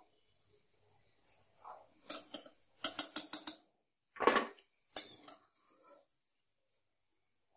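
A perforated metal skimmer clinking and scraping against a metal kadhai while pieces frying in oil are lifted and turned. There is a quick run of about five clinks a little after two seconds in, then a louder clatter around four seconds and a last clink at five.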